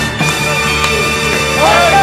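Background music: a piece with sustained held notes and a sliding melody line near the end.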